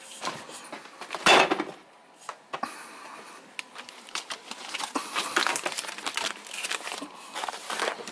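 A refrigerator door pulled open with a loud thump about a second in, followed by plastic bags and food packages crinkling and rustling as things on the shelf are moved about.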